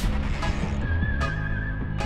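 Background music: sustained low bass notes changing in steps, with a high wavering note that comes in about a second in.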